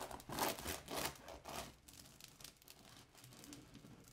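Serrated bread knife sawing through the crisp crust of a freshly baked sourdough loaf: several scratchy, crunching back-and-forth strokes in the first two seconds, then fainter cutting.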